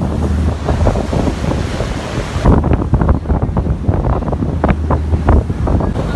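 Wind buffeting the microphone on an open water-bus deck, over the rush of waves against the hull and the steady low hum of the boat's engine. A higher hiss of rushing air and spray drops away about halfway through.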